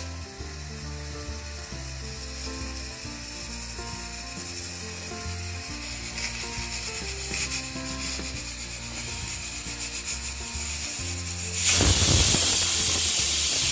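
Stovetop pressure cooker letting off its first whistle: about twelve seconds in, a loud rush of steam starts suddenly at the weight valve and holds steady. It is the sign that the cooker has come up to full pressure.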